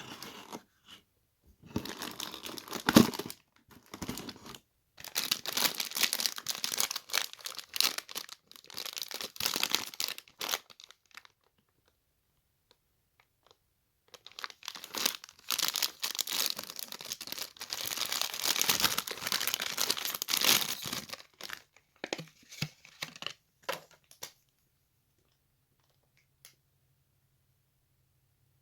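A sealed blind bag's packaging being torn open and crinkled by hand, in two long stretches of tearing and rustling with a short pause between, stopping well before the end.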